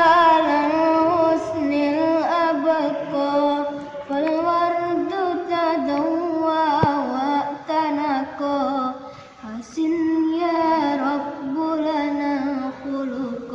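A boy's solo voice singing an Arabic sholawat unaccompanied, in long ornamented phrases with short pauses for breath between them.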